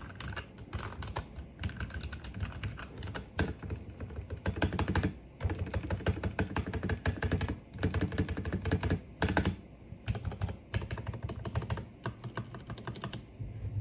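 Fast typing on a Royal Kludge RK84 mechanical keyboard with linear Cherry MX Red switches: dense runs of keystrokes broken by short pauses.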